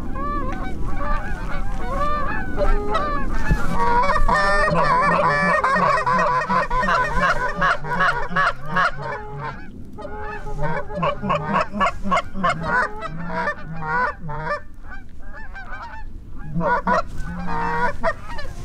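A flock of Canada geese honking in flight overhead: many overlapping honks, thickest about a third of the way in, thinning briefly past the middle and then picking up again.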